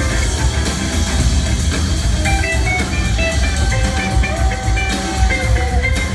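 Live rock band playing an instrumental jam: a lead electric guitar line with some notes held long, over drum kit and bass.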